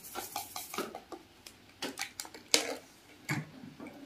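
Metal spoon stirring instant coffee in a ceramic mug, clinking quickly against the sides, then a few separate, louder clinks and knocks, the loudest a little past halfway.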